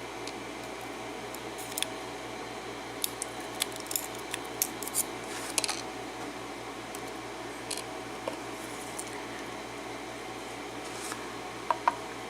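Scattered small metallic clicks and taps as the pins are worked out of a disassembled old Yale pin-tumbler lock cylinder, over a steady background hum. Most of the clicks come in a cluster in the first half, with a few more later.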